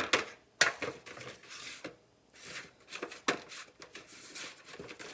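Dry seed-starting pellets being set down and arranged in a pan: a run of light clicks and taps, with a little scraping as they are slid into place.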